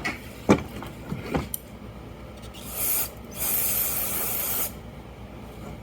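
Aerosol can of parts cleaner spraying in two bursts, a short one about three seconds in and then a longer one, onto a weld repair on an aluminum scooter engine case to check it for leaks. A few light knocks of handling come before.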